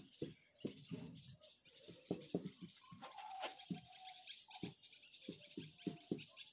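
Felt-tip marker squeaking and tapping on a whiteboard as words are handwritten: a run of short, faint strokes with a few brief squeaks.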